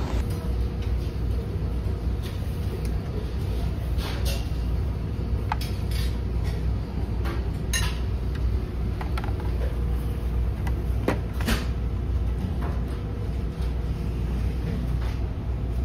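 Steady low drone of the ferry's engines carried through the ship, with scattered light clinks of metal serving tongs and spoons on buffet dishes.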